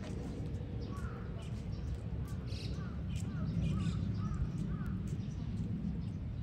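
A bird calling in a quick run of short chirping notes over a steady low background rumble, with scattered sharp clicks.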